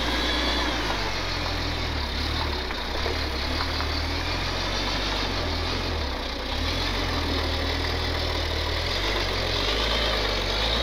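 Old propane-fuelled forklift engine running under heavy load, its speed rising and falling a few times as it works near the limit of what it can lift.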